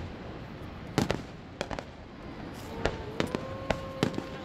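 Fireworks bursting: a series of sharp bangs, a cluster about a second in and several more close together in the second half, some with a rolling echo.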